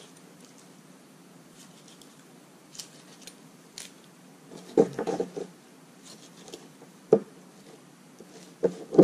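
Kitchen knife cutting through the joints of a raw seal flipper on paper over a countertop: short scattered slicing scrapes, a cluster of knocks about five seconds in, a single sharp knock about two seconds later and more knocks near the end.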